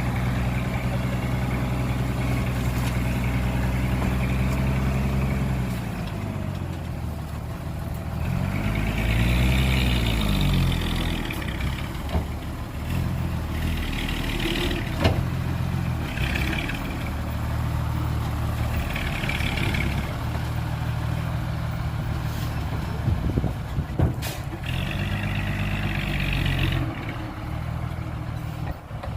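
Heavy diesel engine of earth-moving machinery running and revving up and down several times, with a couple of sharp knocks.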